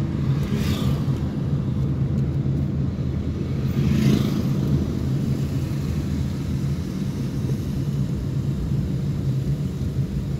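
Steady low engine and road drone heard inside a moving car, with a brief rush of noise about four seconds in.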